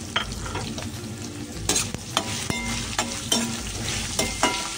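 Chopped onions sizzling in hot oil in a stainless steel kadhai while a spatula stirs them. The spatula scrapes and knocks against the pan about eight times, some strokes leaving a short metallic ring.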